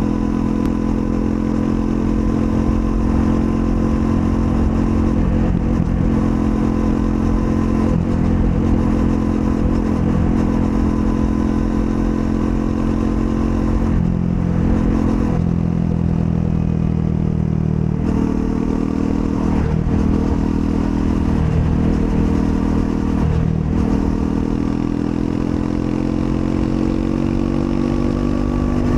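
Triumph Scrambler 400 X's single-cylinder engine pulling under way while riding. The engine note holds mostly steady, dips briefly about halfway through, then climbs slowly near the end as the revs rise.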